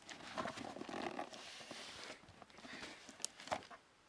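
Cardboard shipping box being handled and its flaps pulled open by hand: faint rustling and scraping, with a couple of light clicks about three seconds in.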